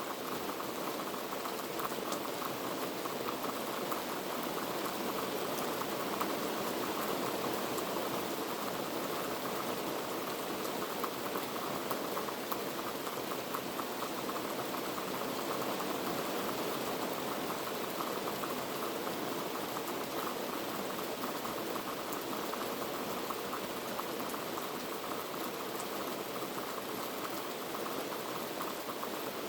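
Heavy rain falling steadily: a dense, even hiss of countless drops striking surfaces.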